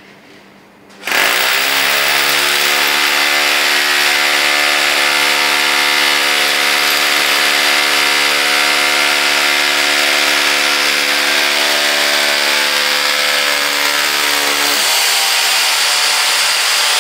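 Electric hammer drill boring a hole into a concrete floor, running steadily from about a second in. Its tone changes near the end as the lower hum drops away.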